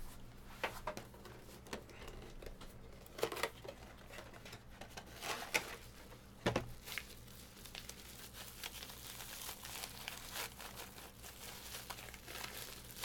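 Packaging crinkling and rustling in scattered bursts, with a few light taps and knocks.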